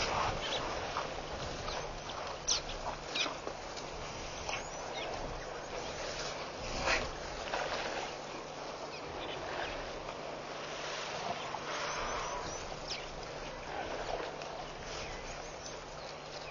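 Outdoor waterhole ambience picked up by a wildlife camera's microphone: a steady hiss with a constant low hum, and a scattering of short, sharp snaps and clicks about every second or two.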